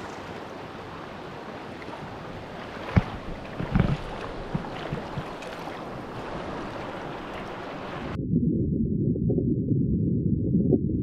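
Shallow, fast mountain river rushing over stones, with a couple of sharp knocks about three and four seconds in. About eight seconds in the microphone goes under water: the sound turns suddenly to a louder, muffled low rumble of the current.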